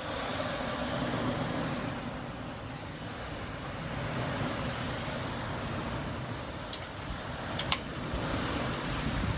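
Typhoon wind rushing steadily around a tall building, heard from inside, swelling a little partway through. A few sharp clicks sound near the end.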